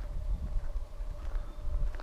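Footsteps walking on a sandy dirt road, a run of irregular soft thuds, with a faint steady tone underneath.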